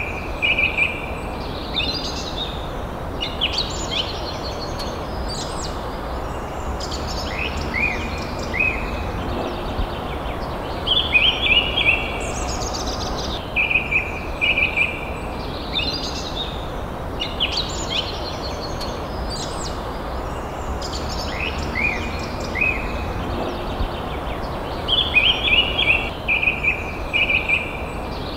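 Wild birds chirping and singing in short phrases of high notes, one phrase of quick repeated notes coming back several times, over a steady low background noise.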